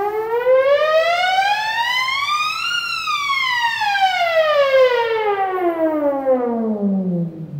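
Akai EWI 4000s electronic wind instrument sounding one continuous synth note in a glissando played on its glide plate. The note rises smoothly for about three seconds, then slides down more slowly and ends well below where it began.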